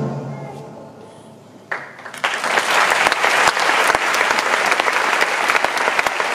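A concert band's last chord fading out, then about two seconds in the audience breaks into applause, which carries on steadily.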